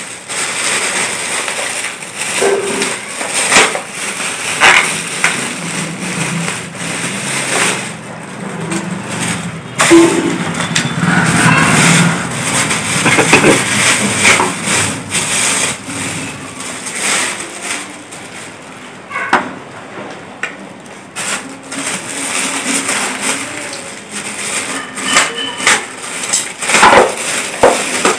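Plastic bag wrapping crinkling and rustling as small speakers are unwrapped by hand, with irregular knocks and clicks as the speakers are handled and set down.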